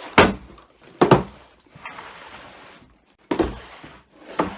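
Four dull thuds, roughly a second or two apart, with a short rustling or sliding noise between the second and third.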